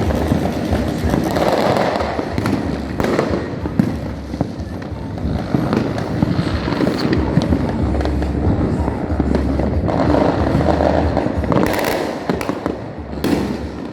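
New Year fireworks going off in a continuous barrage of bangs and crackles, with a couple of sharper, louder bangs near the end.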